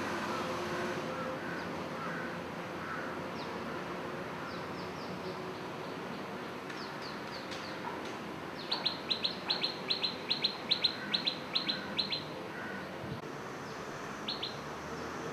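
A bird giving a quick run of about a dozen short, high, falling chirps lasting a few seconds, with fainter chirps before it and a couple more near the end, over a steady background hiss.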